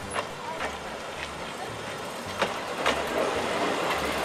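Billard A 150 D diesel railcar rolling slowly past, its wheels clicking irregularly over the rail joints over a low, pulsing engine rumble, growing louder as it comes close.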